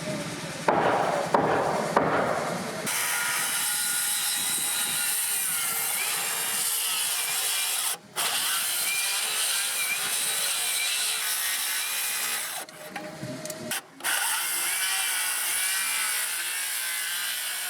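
A few wooden knocks, then a chainsaw cutting through a log: a steady, high-pitched run with a wavering whine that breaks off abruptly twice.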